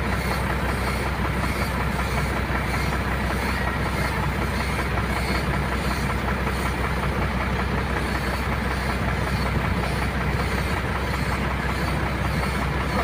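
Air compressor running steadily while supplying an air hose for spray painting: a constant low hum under an even hiss.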